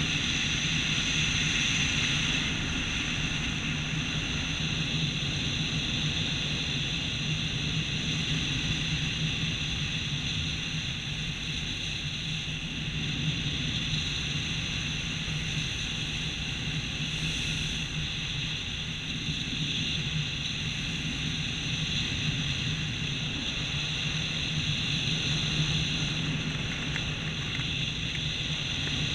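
Steady wind rushing over a body-worn camera's microphone as a skydiver glides down under an open parachute canopy, with a low rumble and a hiss that hold steady.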